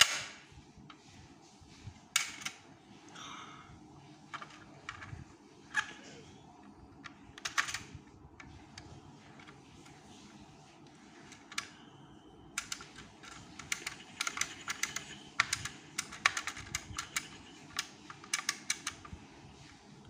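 Hard plastic clicks and clacks of a Kenner M.A.S.K. Jackhammer toy truck being handled and its moving parts worked: a few separate clicks, then a fast run of clicking in the second half.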